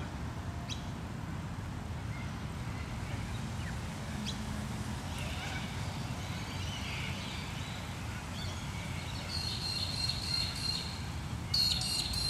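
Park ambience after rain: a steady low rumble of distant city traffic with birds calling. About nine seconds in, a bird gives a rapid chattering call, and it calls again louder near the end.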